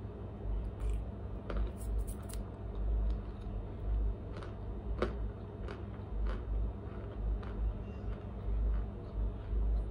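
Chewing a mouthful of raw Argo cornstarch chunks: soft, scattered crunching clicks over irregular low thuds of the jaw working.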